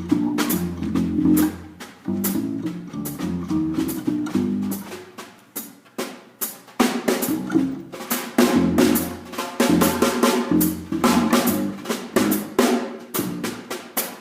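Band music led by a drum kit: quick snare and drum hits over held bass notes and chords.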